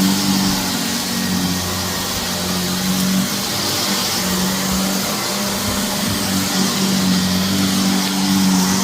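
Shark vacuum cleaner running steadily over a dirty carpet: a constant motor hum under the hiss of rushing air.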